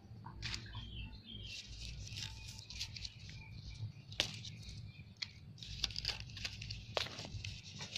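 Rustling and sharp clicks of leaves and twigs being handled on a potted water apple sapling, with faint short chirps behind.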